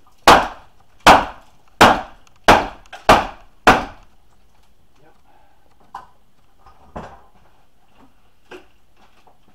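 Six hard blows on wooden wall framing during demolition, about one every two-thirds of a second, followed by a few lighter knocks.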